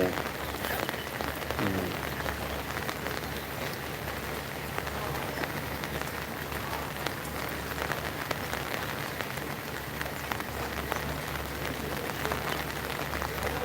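Steady rain falling, with many small drop ticks close to the microphone.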